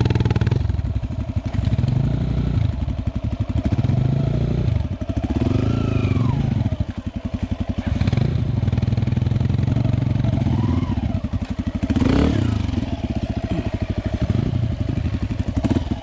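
Yamaha WR155R dirt bike's single-cylinder four-stroke engine running at low revs, rising and falling with the throttle several times as the bike rides a rough dirt trail.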